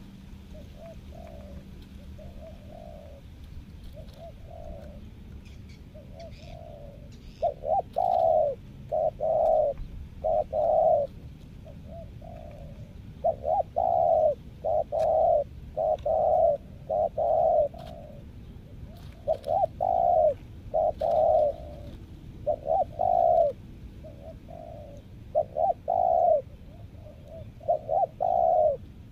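Spotted dove cooing, a steady series of short coo notes in groups of two or three. The notes are faint for the first few seconds, then much louder for the rest.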